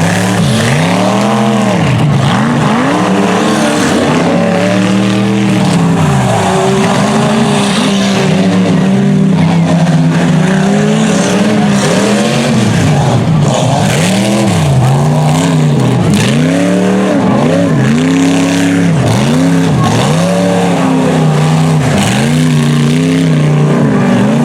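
Truck engine on a tough-truck course, revving up and down over and over, about once every second or two, as the throttle is worked over the bumps.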